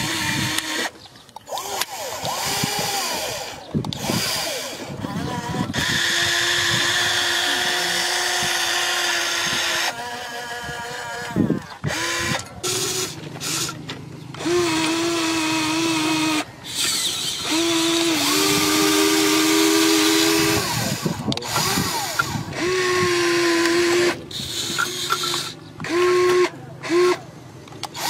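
Small electric gear motors of a radio-controlled Caterpillar 330D model excavator whining in repeated runs as its tracks and arm are driven. Each run starts and stops abruptly, and the pitch shifts from one run to the next.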